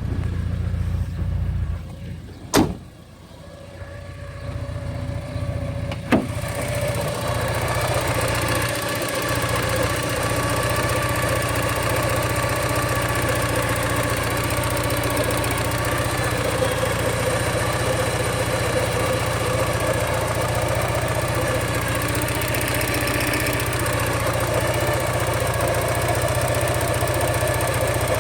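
1985 Porsche 944's 2.5-litre four-cylinder engine running steadily, with two sharp bangs in the first six seconds. After the second bang the engine is heard louder and fuller to the end. The owner takes the noise for rod knock that comes in at about 2,000 RPM.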